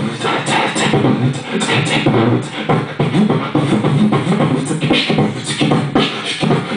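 A beatboxer performing into a handheld microphone, amplified: a fast, dense, unbroken rhythm of vocal drum sounds.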